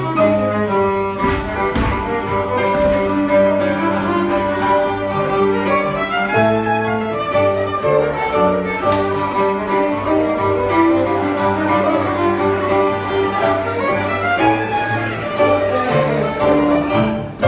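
Contra dance band playing a lively traditional dance tune: two fiddles carrying the melody over a digital piano's chords and bass line, at a steady driving tempo.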